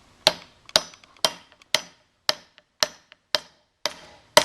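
Hammer blows driving a steel wedge into the wooden handle in the eye of a forging hammer head: steady, even strikes about two a second, nine in all, each with a short metallic ring.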